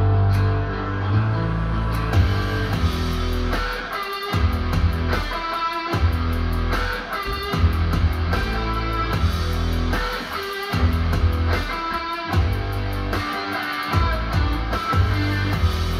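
Guitar-led music with electric guitar and a strong bass line, played through an Icon Audio MFV 3 Super floorstanding speaker.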